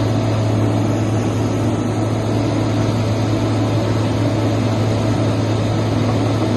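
A large engine running steadily with a deep, even drone that does not change.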